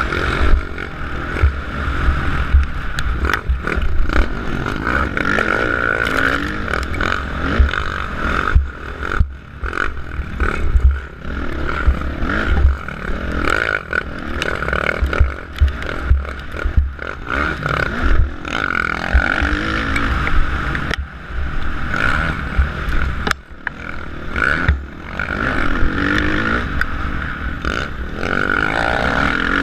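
Motocross bike engine revving up and falling back over and over as the rider works the throttle through the gears. It cuts out briefly a couple of times, and heavy wind buffeting on a helmet-mounted camera runs under it.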